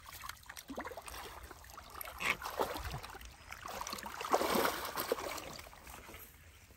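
Hands groping and sloshing through thick muddy water in a shallow ditch: irregular wet squelches and splashes, loudest about two seconds in and again about four and a half seconds in.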